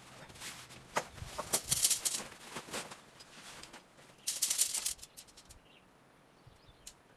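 Nylon tent fabric rustling and flapping in bursts as the tent is pulled from its bag and shaken out on the ground, with a few sharp clicks. A louder burst of rustling comes about four seconds in, followed by light ticks as the tent poles are unfolded.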